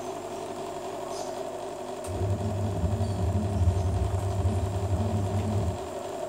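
A vehicle engine running, a low rumble that starts about two seconds in and cuts off near the end, over a steady background hum.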